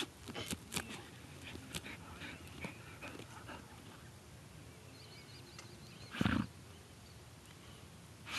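Dog sniffing and snuffling with its nose pushed into a mouse burrow in the soil, with crackly scratches of dirt and dry grass over the first few seconds. There is one louder short huff from the dog about six seconds in.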